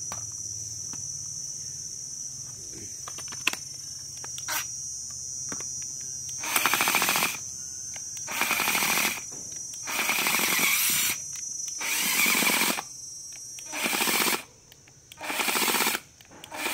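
Cordless drill/driver triggered in about seven short bursts, starting about six and a half seconds in, each under a second long: a rapid mechanical clattering buzz. Before that only a few faint clicks are heard.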